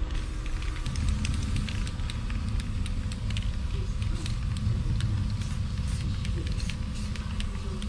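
Aerosol cans of camouflage spray paint hissing in many short, irregular bursts onto a 55-gallon steel drum, over a steady low rumble.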